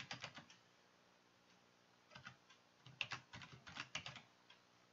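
Faint computer keyboard typing: a few keystrokes at the start, a pause of about a second and a half, then a quicker run of keystrokes from about two seconds in.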